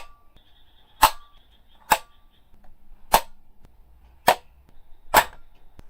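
A series of six sharp snaps, each short and dry, coming about once a second with near quiet between.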